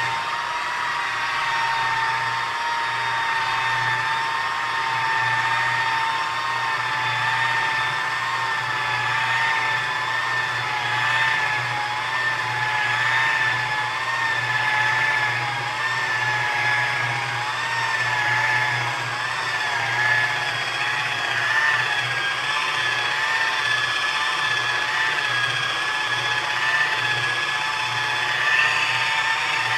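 Electric polisher running steadily as it buffs rubbing compound into a latex-painted wing, its motor whine wavering slightly in pitch as the pad is worked over the surface.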